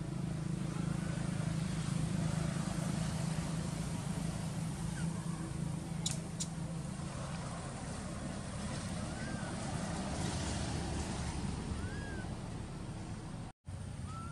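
A steady low engine hum, loudest in the first half, with a few faint, short rising-and-falling squeaking calls scattered through it and two brief clicks about six seconds in.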